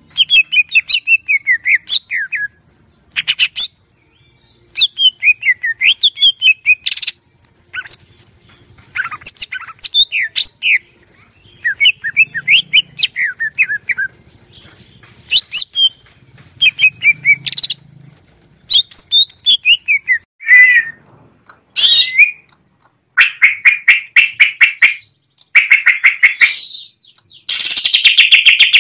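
A cucak ijo (green leafbird) singing loudly in phrases of rapid chirping notes that sweep up and down, broken by short pauses. Near the end the phrases turn into fast, dense trills.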